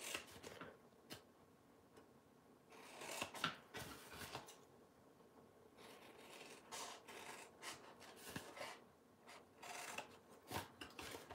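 Scissors cutting through cardstock along score lines: faint snips in short spurts with quiet gaps between.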